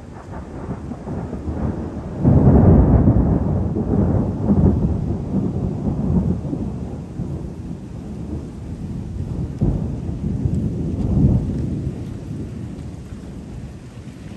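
Rolling thunder: a low rumble that swells suddenly about two seconds in, rolls on with several further surges, and slowly dies away near the end.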